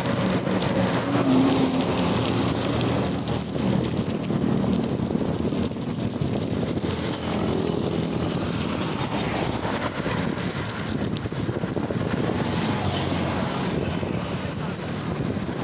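Steady road traffic noise from cars, vans and motorcycles, heard while riding along the highway.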